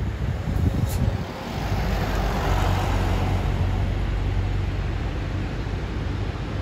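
Road noise of a moving car: a steady low rumble of tyres and engine with rushing air, and a rushing swell that rises and fades about two to three seconds in.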